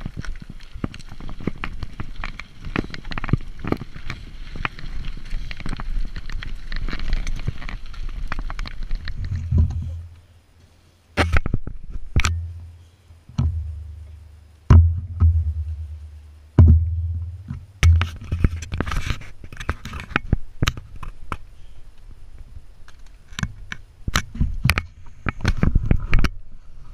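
Mountain bike rolling over a bumpy dirt trail, heard through a handlebar-mounted action camera: rattling, knocking and wind rumble for about the first ten seconds. The riding then stops abruptly, and scattered knocks and short low rumbles follow as the camera is handled.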